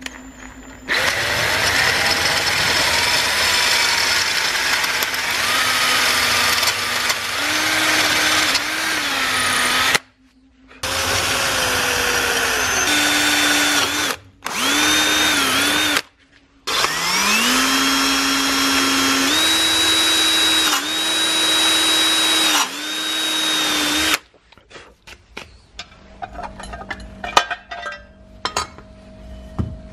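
Handheld electric drill boring a twist bit through a metal part of an antique charcoal iron clamped in a vise: the motor whine shifts in pitch under load, stops briefly three times midway and spins back up each time. The drilling ends a few seconds before the end, followed by light clicks and clinks of the metal parts being handled.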